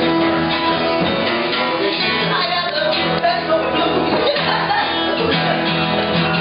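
Music with a guitar playing and singing.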